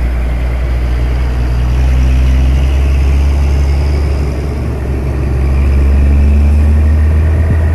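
Heavy diesel truck engine running close by as a loaded dump truck passes slowly, a deep steady rumble that swells twice.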